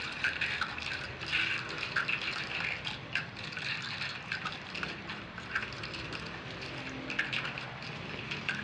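Close-up mouth sounds of candy being sucked from small plastic slush-style cups: wet slurping with many small clicks and smacks.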